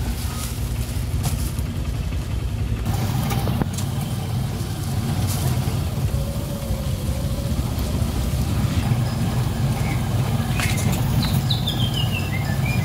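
Motorcycle engine of a becak motor (motorcycle-sidecar taxi) running steadily under way, a low rumble heard from inside the sidecar. A brief high falling chirp comes near the end.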